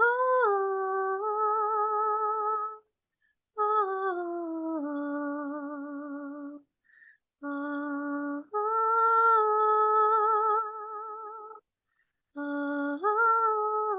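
A woman humming wordless held notes with a gentle vibrato, in four phrases that move between a few pitches, with short breaks for breath between them.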